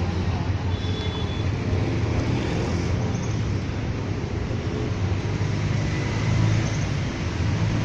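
Busy city street traffic: a steady flow of cars and other motor vehicles running past, with a continuous low engine hum.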